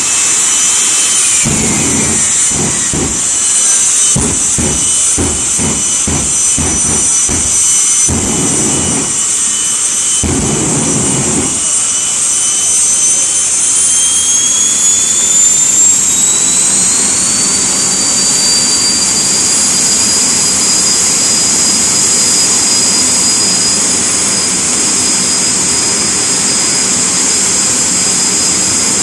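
Jet dragster engines running on the start line: a loud, high, steady whine with uneven low rumbling pulses through the first ten seconds or so. About halfway through, the whine rises in pitch as the engines spool up, then holds at the higher pitch.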